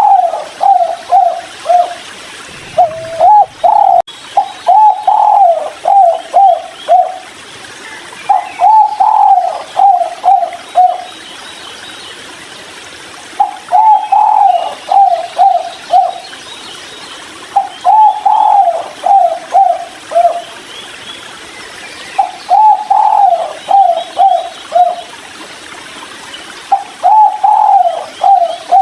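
Spotted dove (tekukur) singing its cooing song over and over, each phrase a run of several low coos that fall slightly in pitch, repeated about every four seconds; it is a 'kuk 3' type song. Faint higher chirps of other birds sound behind it.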